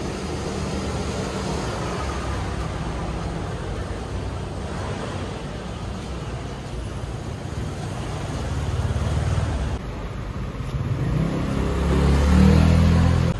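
Street traffic: vehicle engines running steadily, with one engine growing louder near the end.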